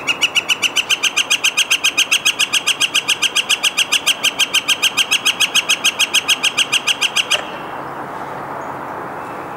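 Northern flicker giving its long call: a fast, even run of about six loud 'wick' notes a second, held for about seven seconds before stopping abruptly, with steady background hiss after.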